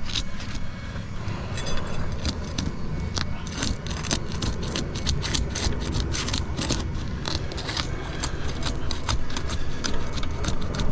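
Brittle, thin asphalt shingle crackling and tearing as it is gently worked loose, many short sharp crackles over a low steady rumble. The tearing is the sign of a shingle too thin and brittle with age to be repaired.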